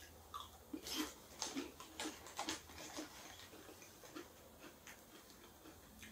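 Lay's sour cream and black pepper potato chips crunching as they are bitten and chewed: a quick run of crisp crackles in the first three seconds, then fewer and fainter ones.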